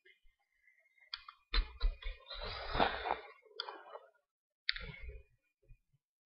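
A few sharp clicks and low thumps, with a short burst of rustling noise about two and a half seconds in.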